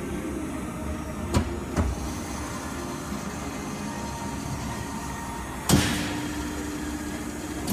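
Steady machine hum from a full hydraulic CNC panbrake folder, with two sharp clicks a little over a second in. A louder clunk comes about three-quarters of the way through, after which a steadier hum tone holds.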